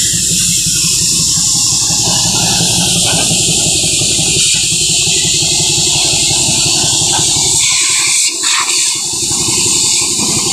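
Compressed-air hose hissing steadily as it blows cement dust off a loaded cement bulker's wheels, over the steady low beat of an idling diesel engine.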